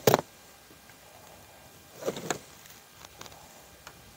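Short clicks and knocks from handling a windshield wiper blade and arm. One sharp knock comes at the start, a cluster of clicks about two seconds in, and a few faint ticks after.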